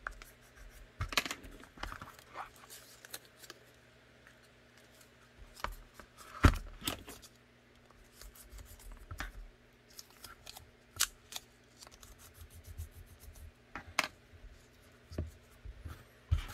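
Blue painter's tape being handled: pulled off the roll, torn, trimmed and pressed down, giving scattered crackles, scratches and small clicks, with one louder knock about six and a half seconds in.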